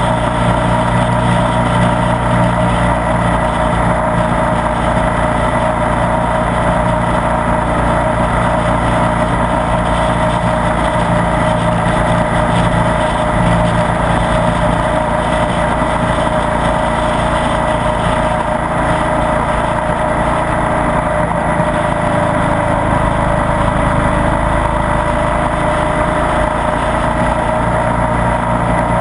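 Ducati Multistrada 1200 S Sport's V-twin engine running steadily at an even cruising pace, heard on board the moving motorcycle.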